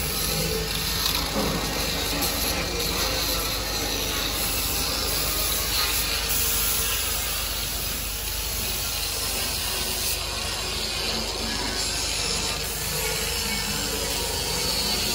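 Compressed air hissing steadily from a gravity-feed paint spray gun on its air hose.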